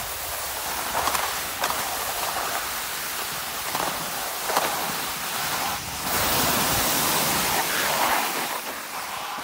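Skis hissing and scraping over ungroomed snow, with a swell of scraping every second or so as the skier turns; the hiss grows louder about six seconds in, then eases off near the end.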